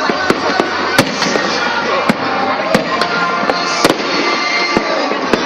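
Aerial fireworks going off: a string of sharp bangs about once a second over a continuous crackle and rumble of the display, with music playing underneath.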